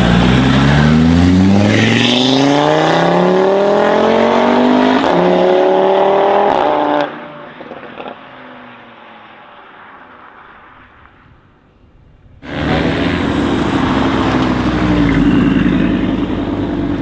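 Audi RS3's turbocharged five-cylinder with a full Armytrix exhaust, accelerating hard, its note rising steadily for about seven seconds. It then lifts off with a few sharp exhaust pops and crackles and falls away. About twelve seconds in, the loud engine sound cuts back in suddenly.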